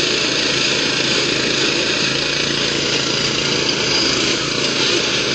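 Riding lawn mower engines running hard and steadily under load as the two tractors pull against each other on a chain.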